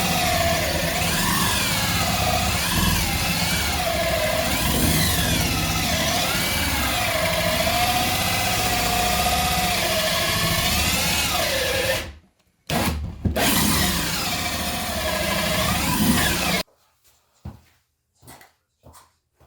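A motor runs steadily with a pitch that wavers up and down. It stops abruptly about twelve seconds in, runs again for a few seconds, then cuts off, leaving near silence with a few faint knocks.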